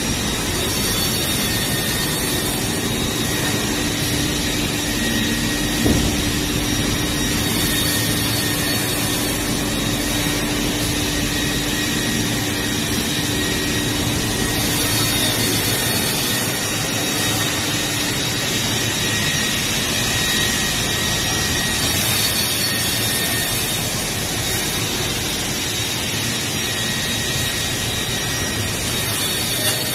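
A CNC optimizing cross-cut saw line running: a steady mechanical hum and whir of motors, with a high hiss that swells and fades every several seconds. A short knock sounds about six seconds in and another near the end.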